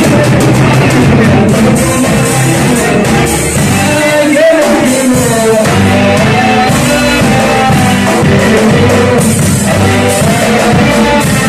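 Live band music: a man's voice singing a melody into a microphone over a drum kit and keyboard, loud and amplified.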